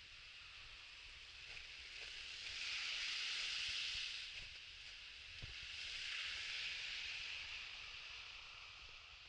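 Car tyres hissing on a wet, slushy road as traffic passes, swelling twice: loudest about three to four seconds in, then again a little after six seconds.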